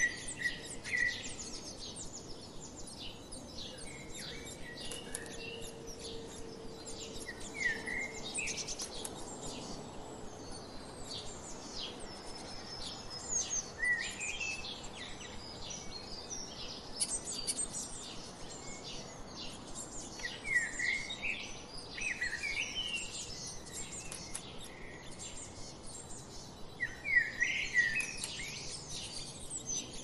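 Small songbirds chirping and calling: many quick, high twittering notes, with louder, lower chirps about a second in, near 8 and 14 seconds, and in clusters around 21–23 and 27–28 seconds.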